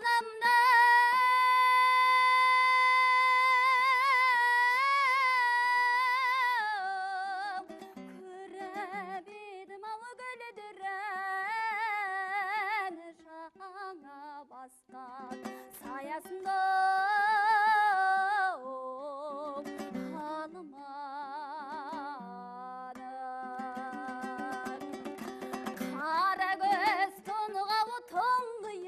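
A woman singing a Kazakh folk song with a plucked string accompaniment. She holds one long note with vibrato near the start, then sings ornamented, wavering melodic phrases.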